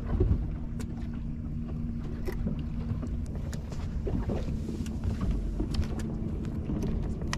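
Steady low hum of a bass boat's bow-mounted electric trolling motor, under wind on the microphone and water against the hull. A few light clicks and knocks as the angler walks forward across the deck.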